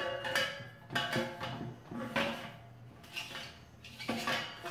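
Metal heater parts knocking against the stainless steel patio heater pole, about five sharp clanks each followed by a short metallic ring, as the gas hose is fed down the pole and the burner head is set on top.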